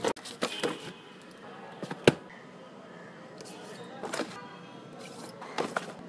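Books being handled: a few sharp knocks and taps as they are moved and set against each other, the loudest about two seconds in.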